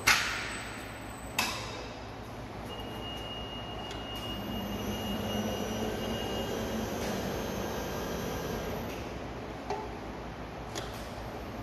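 ERBEND MFAS 3230 CNC servo folder running a fold cycle: two sharp metallic clanks with a short ring in the first second and a half, then the servo drives running with a steady whir for about five seconds, and a couple of light clicks near the end.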